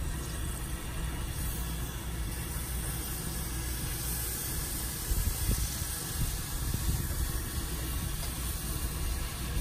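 Gas grill running under a whole iguana, a steady low rumble with an even hiss.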